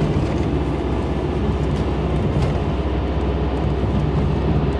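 Steady road noise of a car driving along, heard from inside the cabin: a low, even rumble of engine and tyres.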